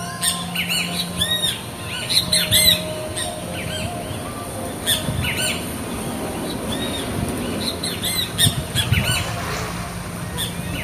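A flock of birds calling: many short calls, each rising and falling in pitch, in quick runs, thickest about two seconds in and again near the end, over a steady low hum.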